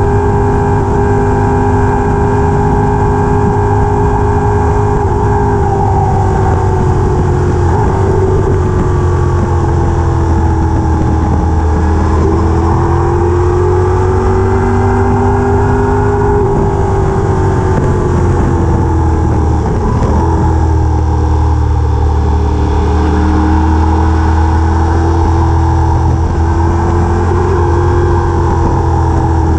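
A vehicle engine running steadily with a deep hum, its pitch slowly rising and falling as the speed changes.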